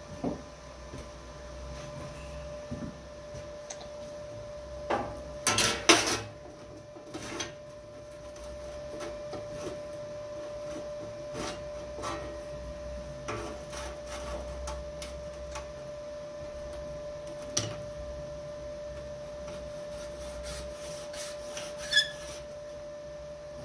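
Straight edge and marker or scribe being handled on a sheet-steel blank while it is marked out: scattered clicks and knocks, with a louder cluster about five to six seconds in, over a steady faint hum.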